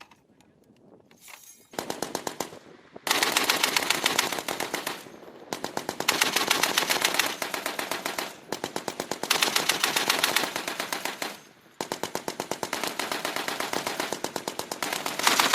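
M2A1 .50-calibre heavy machine gun firing several long bursts of rapid automatic fire, starting about two seconds in, with short pauses between bursts.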